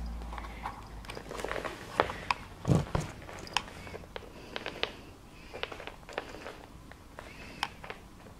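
Turkish Angora cat biting and pawing at a leash: a scatter of small clicks and rustles, with one low thump a little under three seconds in, the loudest sound.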